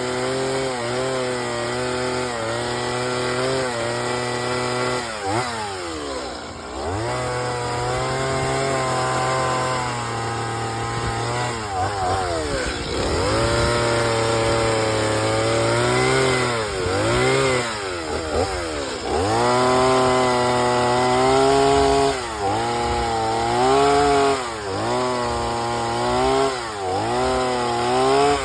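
Chainsaw carving wood, its engine pitch dropping and rising again and again as the throttle is worked and the chain bites into the cut.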